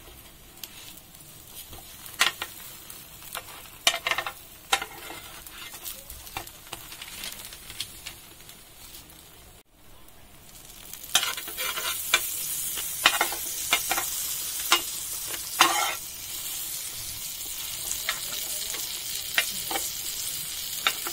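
Sandwiches toasting in a nonstick grill pan. In the first half a metal spatula taps and scrapes against the pan as the bread is turned. About halfway through, butter goes into the hot pan and sizzles loudly, with sharp clicks of a spoon against the pan.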